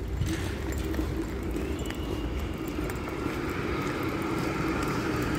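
Steady low rumble of distant road traffic, with a faint engine whine drifting in pitch above it.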